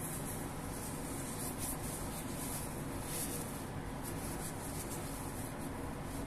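Soft, repeated rubbing of a paper towel wiped over the skin of a freshly tattooed hand, over a steady low background hum.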